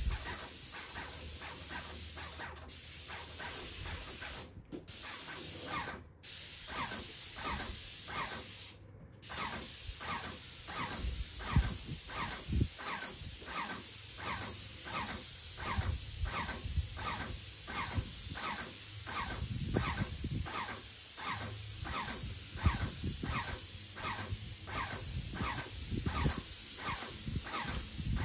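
Airless paint sprayer spraying: a steady hiss that cuts out briefly four times in the first ten seconds as the trigger is released, with a regular squeak about twice a second.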